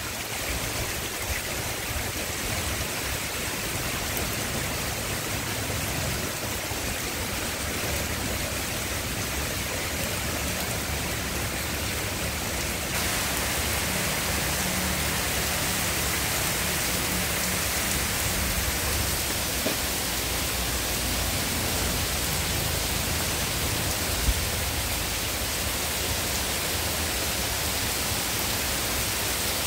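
Heavy rain pouring steadily onto trees and flooded ground, a dense, even hiss that grows a little louder about halfway through.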